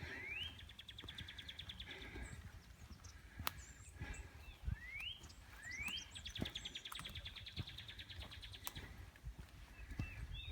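A songbird singing: a couple of rising whistled notes followed by a fast, even trill about two seconds long, heard twice. Under it come soft, irregular thumps of footsteps on the trail and a couple of sharp clicks.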